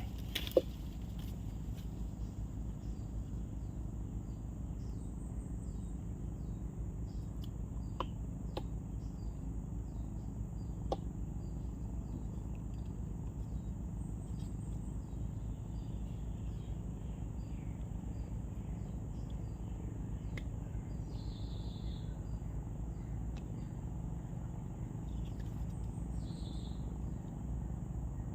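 Insects chirping in a repeated, irregular series, over a steady high insect hum and a low steady rumble. A few sharp clicks stand out, the loudest under a second in.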